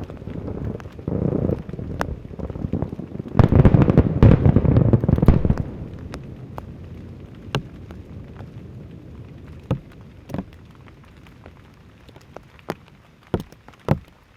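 Aerial fireworks shells bursting in a dense barrage of booms and crackle, loudest around four to five seconds in, then thinning to a handful of separate sharp bangs.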